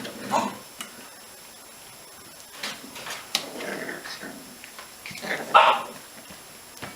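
Five-week-old Icelandic Sheepdog puppies vocalizing in play: a few short yips and growly whines in separate bursts, the loudest near the end.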